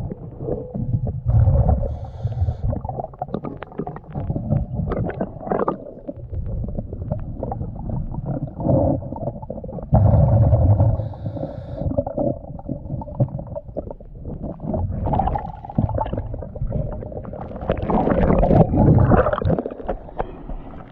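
Underwater sound through a camera housing: a scuba diver breathing on a regulator, with a short hiss on each inhale and rumbling bursts of exhaled bubbles every few seconds. A faint steady hum runs under it, and water sloshes as he surfaces near the end.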